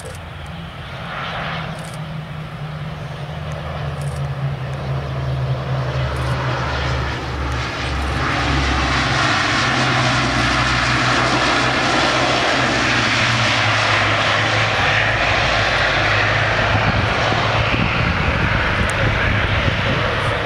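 A FedEx Feeder ATR 42's twin turboprop engines and propellers as it rolls along the runway. The sound grows louder over the first eight seconds or so as it approaches, then holds steady, a low propeller drone under a broad engine rush.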